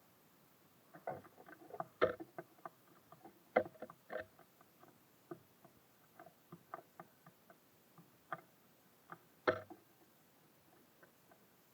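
Small birds pecking and hopping in a bird feeder: irregular sharp taps and clicks on the feeder, a few louder knocks among them.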